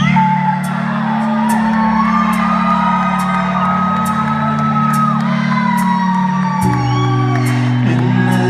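A rock band playing live in a large hall: a held low chord that changes to a new one about six and a half seconds in, with wavering lead lines above and a steady tick about twice a second. The crowd whoops and shouts over the music.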